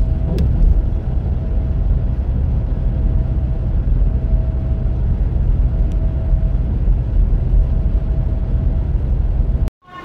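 Steady low rumble of tyre and engine noise from a road vehicle in motion, heard from inside its cabin. It cuts off suddenly near the end.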